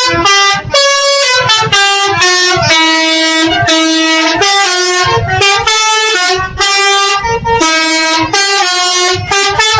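A bus's 'telolet' horn, a multi-tone musical air horn, played loud as a fast run of short notes that jump between pitches, about two notes a second with brief gaps between them, going on without a break.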